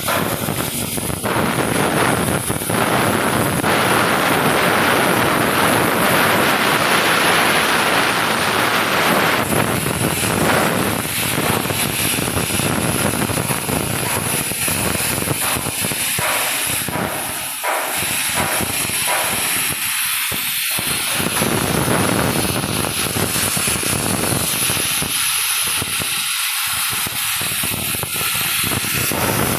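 CNC machine running, giving a loud, steady hiss-like noise that thins out with short dips in the last third.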